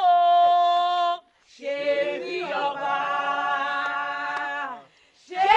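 Unaccompanied singing by a small group of worshippers. One voice holds a long note for about a second, then after a short break several voices hold a long chord together for about three seconds before stopping.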